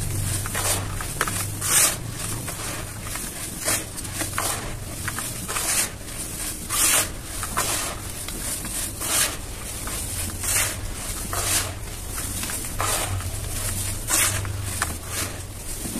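Hands crushing and crumbling soft, dry, dusty cement shapes: an irregular run of soft crunches and powdery crackles as the lumps break apart and sift down. A steady low hum runs underneath.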